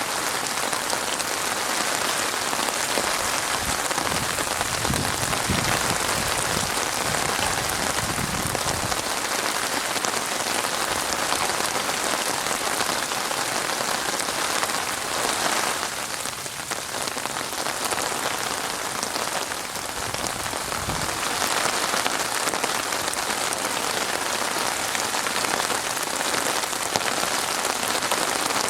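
Steady rain falling and pattering on a surface, a dense even hiss that eases slightly a couple of times.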